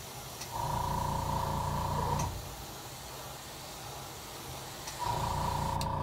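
Airbrush spraying paint in two short bursts, about half a second in and again near the end, each lasting about a second and a half with a steady whistle-like tone over a low hum.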